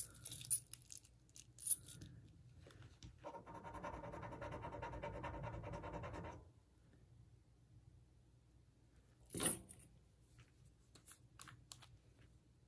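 A sterling silver test being redone on a bracelet: a few light clicks of handling, then about three seconds of steady scratching as the metal is rubbed, and a single knock near the end.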